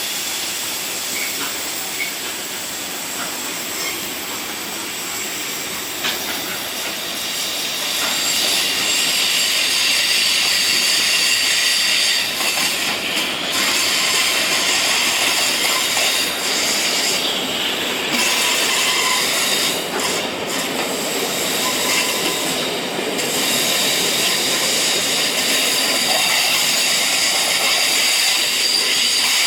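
A train rolling past on the rails with steady high-pitched wheel squeal, getting louder about eight seconds in and staying loud.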